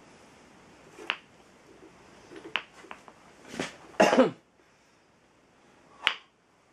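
Hands handling the head of a benchtop drill press beside the chuck: a few sharp clicks and knocks, with a louder rough clatter about four seconds in.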